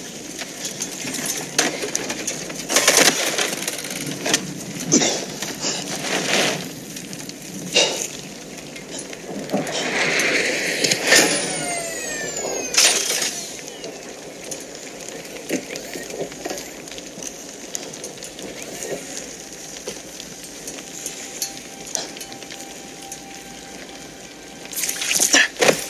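Dramatic battle sound effects: a series of sharp crashes and crumbling impacts, with a swelling whoosh and several falling pitch sweeps about ten to thirteen seconds in.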